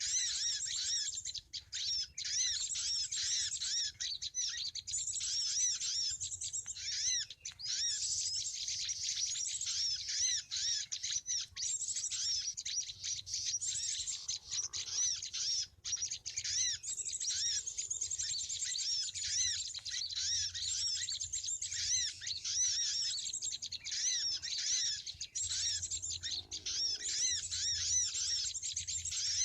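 Bar-winged prinias (ciblek) chirping in a dense, unbroken stream of quick, high arched notes.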